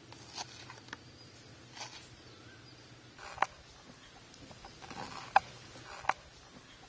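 Knife slicing fresh ginger on a wooden cutting board: scattered sharp taps of the blade on the board, the three loudest in the second half.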